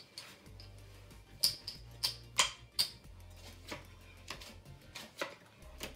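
Poker chips clicking against each other as they are picked up and restacked on a felt blackjack table, with playing cards being gathered. The clicks are sharp and irregular, thickest between about one and a half and three seconds in.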